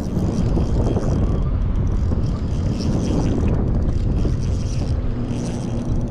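Wind buffeting the microphone as a steady low rumble, with a faint steady hum underneath.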